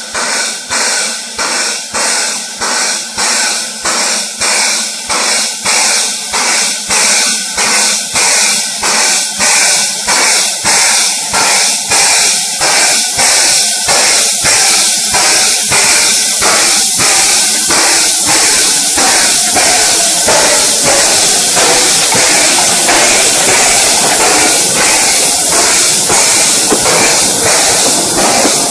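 C2 class 0-8-0 narrow-gauge steam locomotive hauling a loaded coal train, its exhaust chuffing in a steady rhythm of about two beats a second that grows louder as it comes closer. In the last third the beats blur into the continuous rolling clatter of the coal wagons passing close by.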